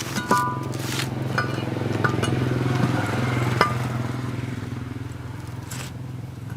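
An engine running steadily at a constant speed, with several sharp metallic clinks on top, the loudest about three and a half seconds in.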